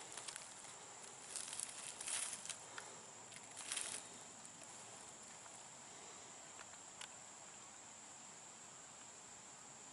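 Steady high-pitched chorus of crickets and other singing insects. A few brief rustles in the first four seconds.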